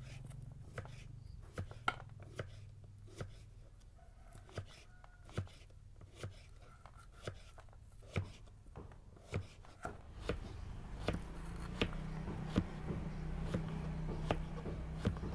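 Small kitchen knife slicing a peeled cucumber on a wooden cutting board: irregular knocks of the blade hitting the board, about one or two a second. About two-thirds of the way through, a low steady drone comes up underneath.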